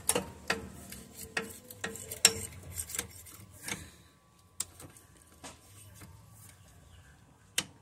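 Metal clicks and clinks of a wrench tightening the clutch-hub nut on a motorcycle clutch basket, about two or three a second at first, then sparser, with one sharper click near the end.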